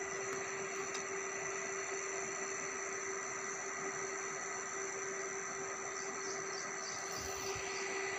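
A steady hiss with a constant hum of a few fixed tones under it, unchanging throughout.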